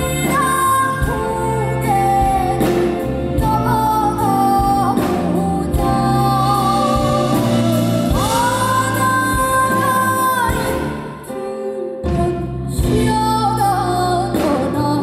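A woman singing live into a microphone with a small band accompanying her, holding one long note a little past halfway; the music drops briefly quieter about eleven seconds in, then picks up again.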